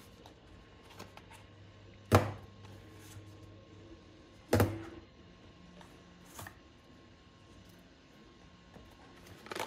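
A small cardboard box being handled and opened, with two sharp knocks about two and four and a half seconds in and a fainter one a couple of seconds later, as the box and the plastic dimmer module are set down on a silicone mat. A few light clicks and paper rustling near the end.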